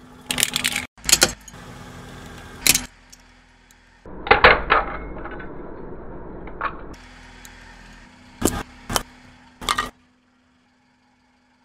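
A car tyre rolling over small plastic toys and a metal tube on asphalt, crushing them with a string of sharp cracks and crunches, some in quick clusters, over the low rumble of the tyre on grit.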